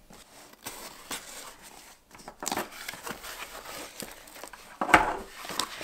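Cardboard box being opened by hand: flaps pulled apart and rustling in short scratchy bursts, with a louder knock about five seconds in.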